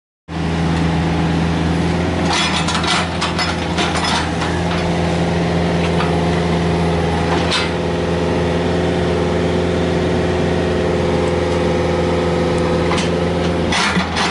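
Komatsu PC45MR mini excavator's diesel engine running steadily while it digs, with the bucket scraping and knocking against soil and stones several times, most around two to four seconds in and again near the end.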